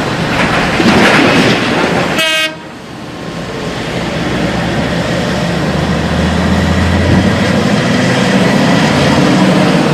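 Heavy diesel mining machinery running with a loud, steady din, and a short horn blast about two seconds in.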